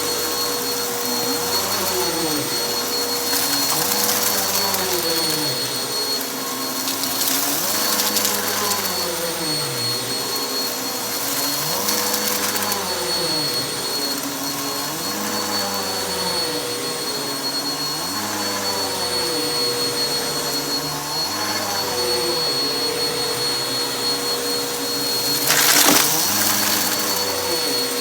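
Vacuum cleaner running on carpet with a steady motor whine. Its sound swells and dips about every two seconds as it is pushed back and forth. A brief louder rattle near the end is debris being sucked up.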